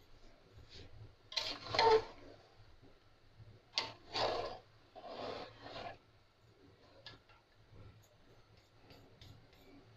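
Ladle stirring freshly added rice into mutton broth in a large cooking pot: three scraping strokes, about one and a half, four and five seconds in, followed by a few faint light clicks.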